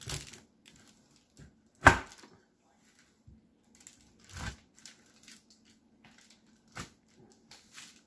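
Serrated chef's knife chopping down through a hardened slab of granola bars, each cut ending in a sharp knock of the blade on the cutting board under the parchment: four main chops about two seconds apart, with lighter clicks and rustles between them.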